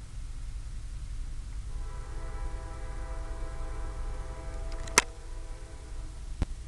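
CSX freight locomotive's air horn sounding one held chord of several tones, starting about two seconds in and fading out about three seconds later, over a steady low rumble. A sharp click comes about five seconds in, the loudest moment, and a smaller one near the end.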